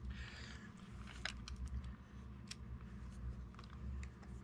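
Faint handling noises from Kirby vacuum drive-assembly parts being worked by hand to get a screw in: a short scrape at the start, then three separate sharp clicks.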